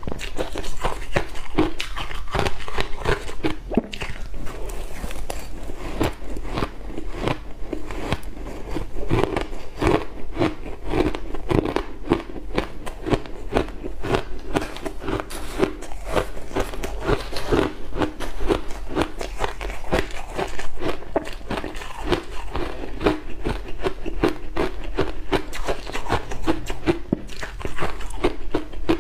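Close-miked crunching and chewing of big mouthfuls of soft crushed ice: a fast, unbroken run of crisp crunches.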